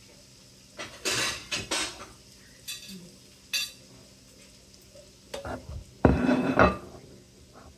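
Dishes and utensils being handled: a few short scrapes and knocks in the first half, then a louder clatter about six seconds in as a plate is set down on the counter.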